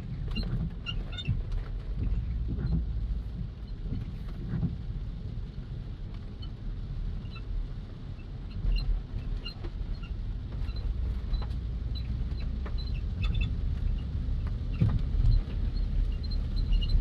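BMW E70 X5 making its bird-like chirping noise: short, high-pitched chirps come at irregular intervals over a steady low rumble from the vehicle.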